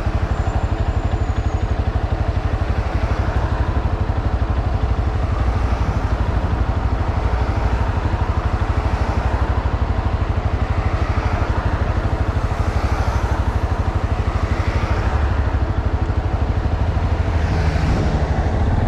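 CFMoto ATV engine running steadily, a low, rapid, even pulse.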